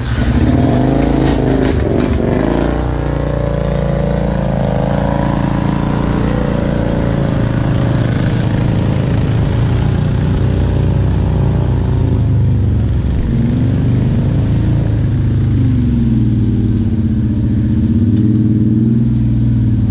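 ATV engines running, the revs rising and falling as the machines are throttled along the trail. The pitch swells near the start and again in the second half.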